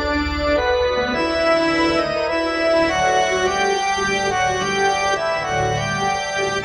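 Organ-voiced keyboard playing an instrumental passage between sung verses: sustained chords, the notes changing every second or so.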